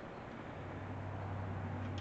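A low, steady mechanical hum that comes in about half a second in and grows louder.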